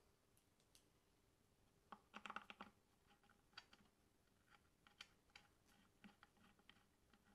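Faint, scattered light clicks and taps of small metal parts, with a quick run of clicks about two seconds in: intake manifold bolts being handled and fitted on a V8 engine.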